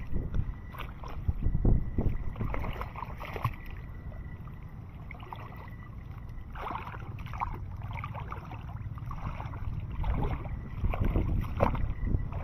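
Low rumbling noise on the microphone, with scattered rustling and clicking and a faint steady high tone.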